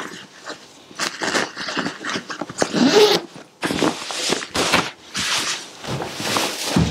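Zip being run closed along the base of a fabric dog-bed cover, with rustling of the cover fabric. Then the padded bed is lifted and flipped over: louder fabric scuffs and soft knocks about halfway through.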